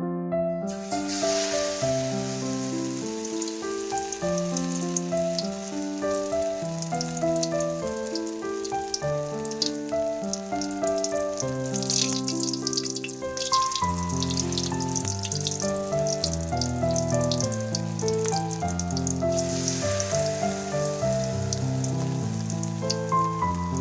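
Battered fritters deep-frying in hot oil in a large metal wok, a steady sizzle with fine crackles that starts about a second in, under gentle keyboard music.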